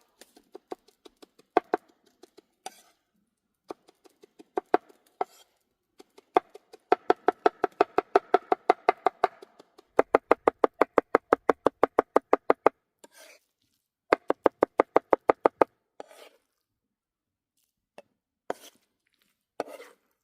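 Knife chopping food on a cutting board: a few scattered cuts, then fast even runs of about six strokes a second, with a short pause between runs and a few single cuts near the end.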